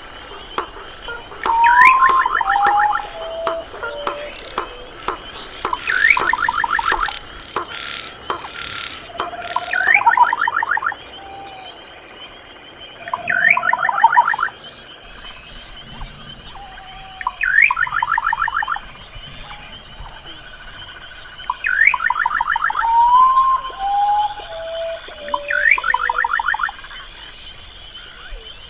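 Crickets trilling in a steady, high continuous drone. Over them another night animal repeats a call about every four seconds: a fast pulsed rattle with a quick rising sweep, sometimes followed by a few falling notes.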